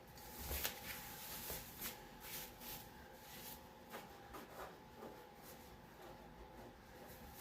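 Rustling and light scraping as the spoiler and its packaging are handled, busiest in the first few seconds and sparser after, over a faint steady hum.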